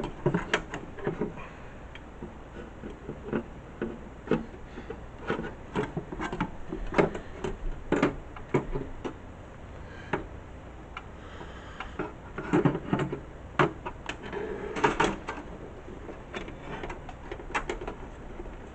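Irregular clicks, taps and knocks of hands working inside a desktop computer case, handling cables and the metal and plastic parts while fitting a hard drive's SATA connections in a cramped space.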